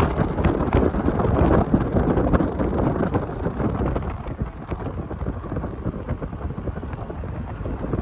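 Wind buffeting the phone's microphone from a moving car, over road and engine noise. Louder over the first three seconds, then easing a little.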